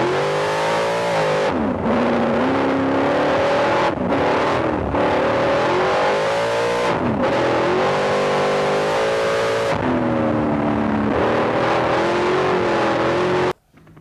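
Onboard sound of the 1992 Donner-Dykstra Chevy open-wheel race car's Chevrolet engine running hard and revving up. Its pitch climbs, then falls sharply about four times before climbing again. The sound cuts off suddenly near the end.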